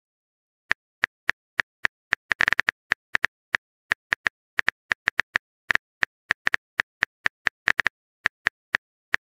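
Phone keyboard typing sound effect: short, dry key taps at an uneven pace of several a second, with a quick run of taps about two and a half seconds in.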